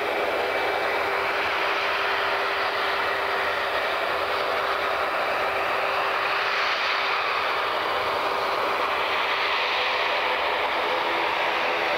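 Jet airliner engines running steadily: an even, unbroken rush of engine noise with a faint constant hum underneath.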